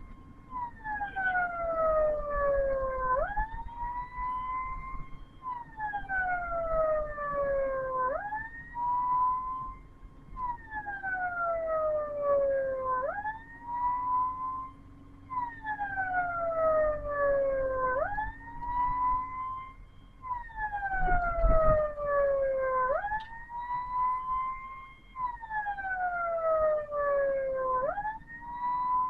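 Ambulance siren wailing in a steady cycle, a quick rise then a slow falling sweep about every five seconds, over faint engine and road noise. A low thump comes about two-thirds of the way through.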